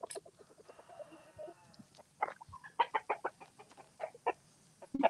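Chickens clucking: a quieter stretch at first, then from about two seconds in a run of short, sharp clucks, several a second.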